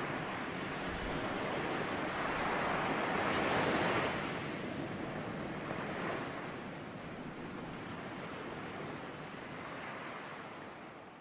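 Sea waves washing on a rocky shore, a steady hiss that swells to its loudest about three to four seconds in, swells again more softly a little later, and fades away near the end.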